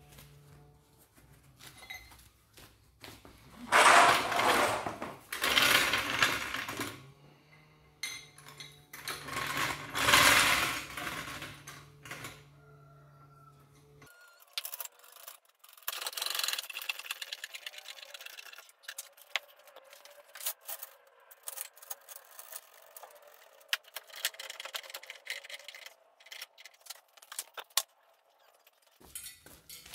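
Hydraulic trolley jack being set under a van and pumped to lift it: two loud scraping rattles in the first half, then a long run of quick metallic clicks and rattles from the jack handle and mechanism.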